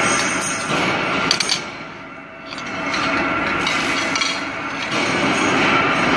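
Steady factory noise with a few sharp metallic clinks about a second and a half in, as steel U-bolts are handled and tossed onto a pile at a hand-lever bending jig.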